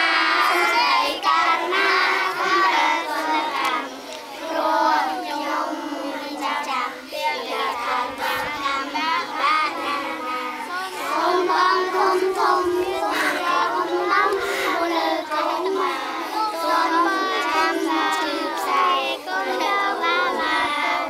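A large group of schoolchildren singing a birthday song together in chorus. It dips in loudness partway through, then swells again about halfway.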